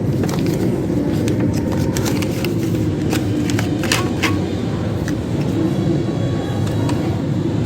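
Scattered sharp plastic clicks and taps from a printer's casing and parts being handled during disassembly, over a steady low rumble of background noise.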